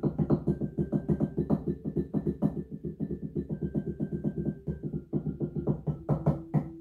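Electronic mallet instrument with wooden bars, struck with soft mallets and sounding its synthesized tones through a speaker: a quick run of notes, about seven a second, slowing near the end to single notes under half a second apart. The volume, judged just rubbish, is too low for the player.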